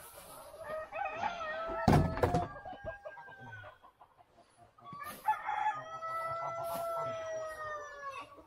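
Rooster crowing twice, each crow a long drawn-out call that falls away at the end. There are a couple of sharp knocks about two seconds in.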